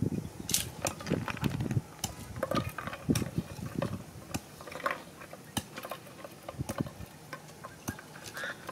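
Snail shells clicking and knocking as they are dropped by hand into a clay pot and against one another, an irregular run of sharp clinks.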